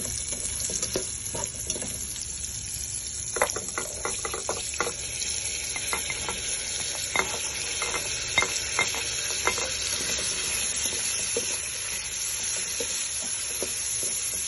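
Julienned carrots and sliced onions sizzling in olive oil in a frying pan as a spatula stirs them. A run of spatula scrapes and taps against the pan falls between about three and ten seconds in.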